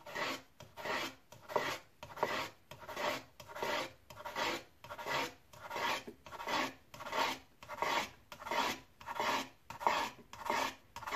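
Kitchen knife slicing a firm, unripe peeled mango into thin slices on a wooden cutting board. Even rasping strokes come about one and a half times a second, each one the blade drawing through the hard flesh to the board.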